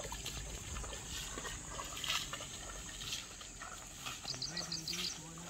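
Footsteps swishing through tall grass, with a steady high-pitched drone behind and a quick run of about eight short chirps near the end.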